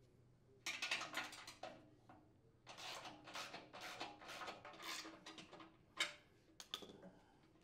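Hand tools on small nuts and bolts: a socket wrench ratcheting in a run of quick clicks, with metal clinks of a wrench and fasteners against the chipper shredder's sheet-metal housing and a couple of sharp clicks near the end. Faint.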